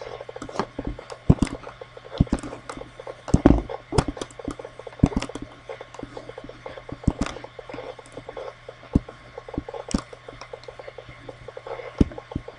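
Irregular, sharp clicks of a computer mouse, some louder than others, over a low steady hum.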